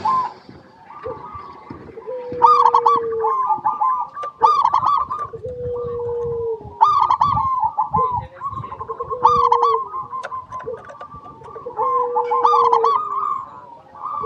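Zebra dove (perkutut) cooing: repeated phrases of quick, rippling coo notes about every two to three seconds, over a longer, steady lower note.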